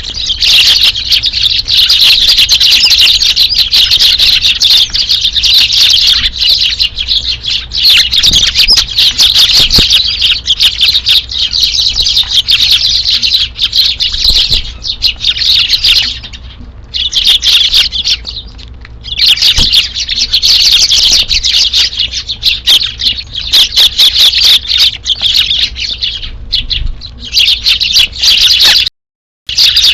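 A flock of Eurasian tree sparrows chirping continuously, many calls overlapping, with a couple of short lulls in the middle. The sound cuts out briefly near the end.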